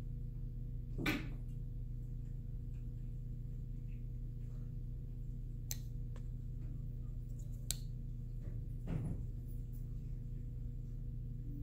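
A steady low hum, with a few faint clicks and two brief rustling swishes, one about a second in and one about nine seconds in.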